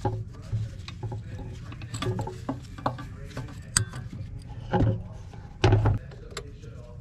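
Irregular clicks, knocks and clatter of hoses, metal intake parts and hand tools being handled in a car's engine bay while the intake plumbing is taken off, with two heavier thumps about five and six seconds in.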